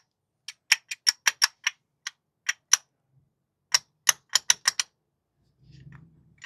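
Sharp metallic clicking in quick irregular runs, metal knocking on metal, as a piston is rocked on its connecting rod in a Peugeot THP engine. The play comes from the rod's missing small-end bushing, the cause of the engine's supposed lifter tick.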